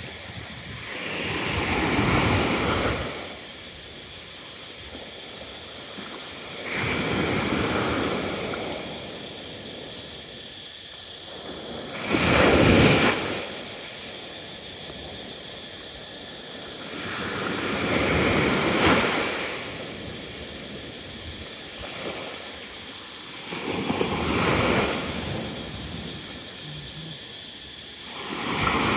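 Small sea waves breaking and washing up a sandy beach, each swelling and then fading, five times, about every five to six seconds; the strongest breaks about halfway through.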